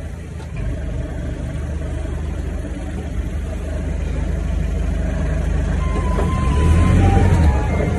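Vehicle engine running at low speed, heard from inside the driver's cab as a steady low hum that swells a little about six to seven seconds in.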